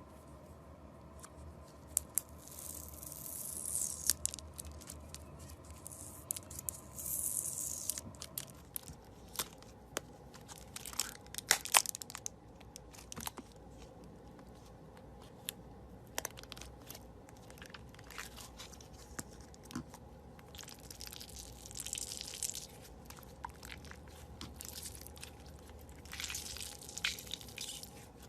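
Slime being handled and stretched: scattered sharp clicks and pops, with several hissing, crackling stretches lasting a second or two each.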